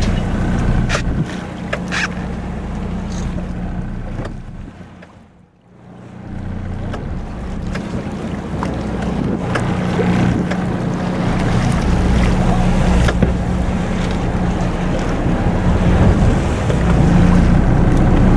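A boat's engine running steadily at idle, with wind on the microphone and choppy water. The sound drops away briefly about five seconds in and comes back.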